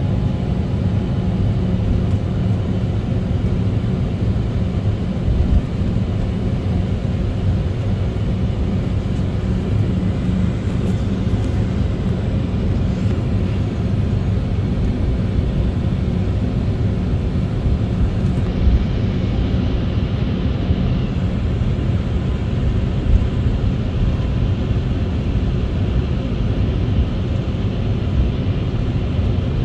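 Steady cabin noise of an Embraer E190 taxiing, heard from inside the cabin: a low rumble from its GE CF34-10E turbofans at taxi power, with a few faint steady tones over it.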